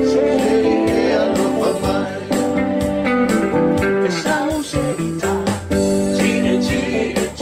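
Guitar-accompanied Samoan song played live: strummed guitar chords over sustained notes.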